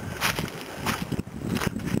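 Footsteps crunching through dry fallen leaves on a trail, about one step every two-thirds of a second.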